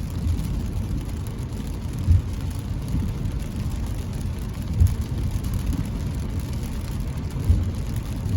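Steady road and engine rumble inside a car driving in the rain, with a brief low thump about every two and a half seconds.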